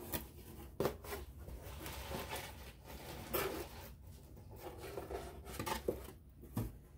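Paper and packaging rustling, with a handful of light knocks and clicks as items are handled and taken out of a cardboard subscription box.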